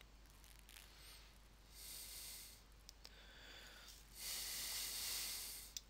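Faint whooshing sound effects of an animation transition: a short swell of hiss about two seconds in, a few small clicks, then a longer, louder whoosh about four seconds in that cuts off suddenly.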